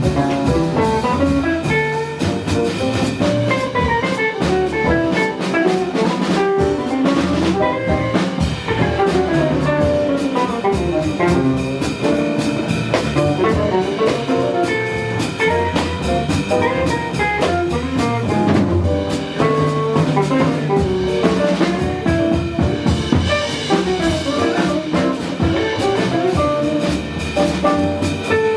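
Live jazz combo playing, with drum kit and bass under a busy, fast-moving lead line.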